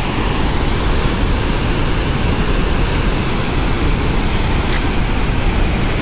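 Loud, steady rushing of water pouring from open dam spillway gates and churning over the concrete baffle blocks below.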